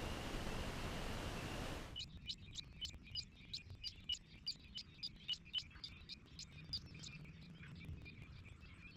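A steady rushing noise that cuts off abruptly about two seconds in, followed by a small bird chirping in quick, high, repeated notes, several a second, growing fainter toward the end.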